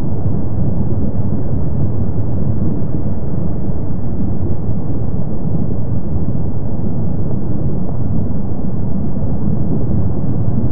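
Kilauea's lava fountains erupting from the crater lava lake: a steady, deep rumble with no breaks.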